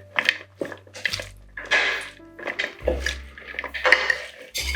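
Background music with held bass notes, over repeated short scraping and sloshing strokes of a green bean salad being mixed in a bowl.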